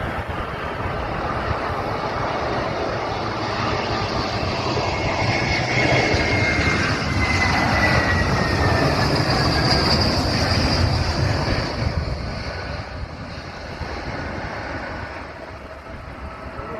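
Airbus A320 jet engines passing on a landing approach: the roar builds to its loudest around the middle, with a high whine sliding down in pitch as the plane goes by, then fades.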